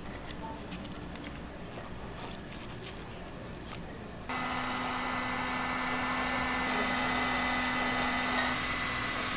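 A small motor-driven machine switches on suddenly about four seconds in and runs steadily, a loud whirring hiss with a low hum and a few higher whines held under it.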